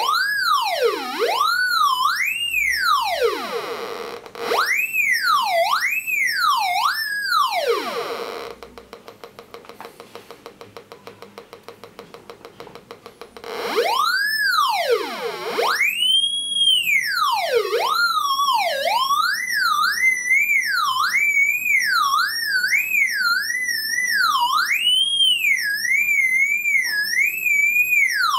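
Raptor X pulse induction metal detector's audio tone swooping up and down in pitch as metal objects are passed over its 32D search coil, rising higher as the metal comes closer. For about five seconds in the middle the tone drops away to a faint rapid ticking, then it swoops back up and wobbles quickly near the end.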